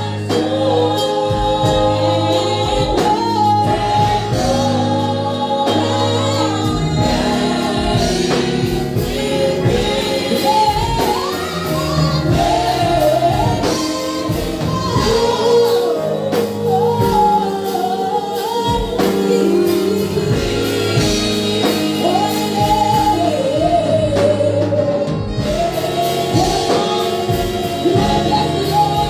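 Gospel music: singers with band accompaniment, a choir or praise team singing over a steady bass line.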